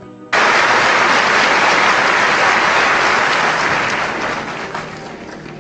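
Large audience applauding, starting suddenly a moment in and then gradually dying down.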